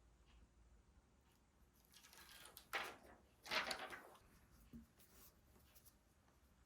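Quiet handling noise during tablet repair work: two short rustling scrapes, the second slightly longer, a little under three seconds in and about three and a half seconds in, otherwise near silence.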